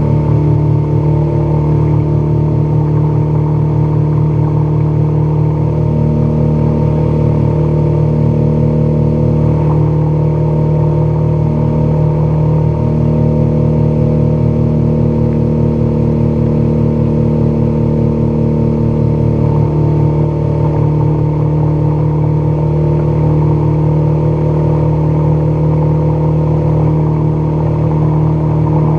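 Boat's outboard motor running steadily at high speed, heard close up, with water rushing past the hull. The engine pitch holds level throughout.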